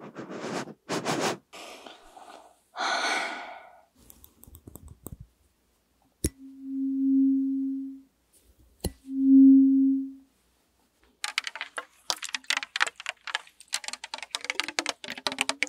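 Close-miked sniffing into the microphone, four breathy sniffs. Then a pair of metal tweezers is flicked twice, each a sharp click followed by a low ringing hum that swells and fades. Near the end, rapid fingertip tapping and crinkling on a plastic water bottle.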